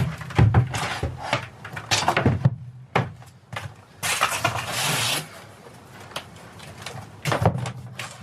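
Cardboard packaging rustling and flat-pack wooden panels knocking and scraping as a furniture box is unpacked, with a longer scraping rustle about four seconds in.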